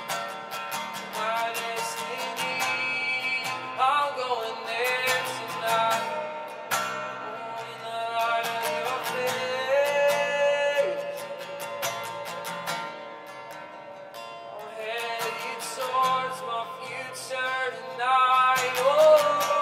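Live worship music: a strummed acoustic guitar with a sustained, gliding sung melody and no clear lyrics.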